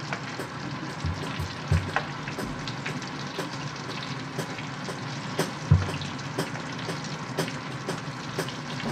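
Fish cutlets frying in hot oil: steady sizzling dotted with small crackles and spits. A few dull knocks come through, the loudest a little under six seconds in.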